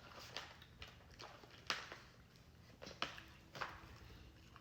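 Eating sounds: scattered sharp clicks and wet smacks of someone eating a loaded baked potato, the loudest a little under two seconds in and another about three seconds in.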